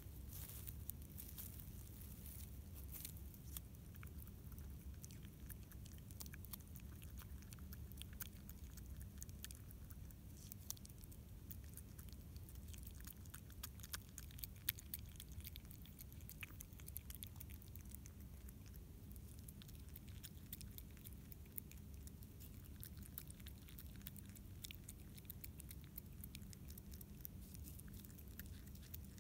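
Common brushtail possum chewing and biting a piece of food, a run of many faint, quick clicks and smacks over a steady low hum.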